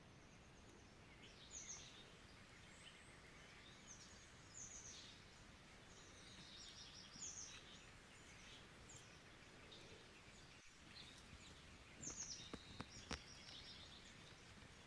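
Faint songbird chirps and short calls, many overlapping, over a low steady hiss, with a few sharp clicks near the end.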